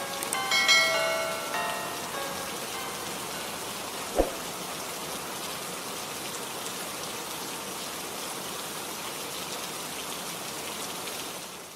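Steady rain, with a few ringing chime notes dying away in the first two seconds and a single sharp knock about four seconds in; the sound fades out near the end.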